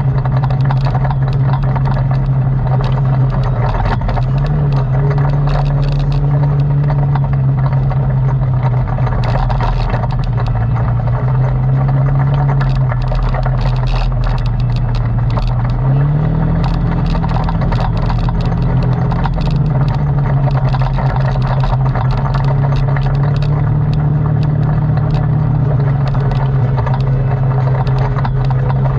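ATV engine running steadily under way, its engine note shifting up a little about sixteen seconds in, with scattered clicks and rattles over it.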